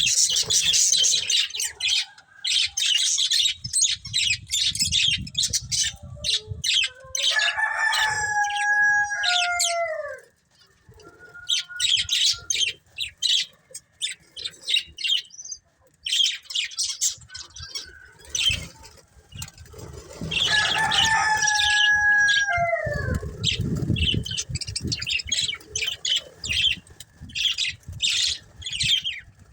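Budgies chirping busily in quick high twitters. Twice, about 7 seconds in and again about 20 seconds in, a longer, lower drawn-out call rises over the chatter and slides down at its end.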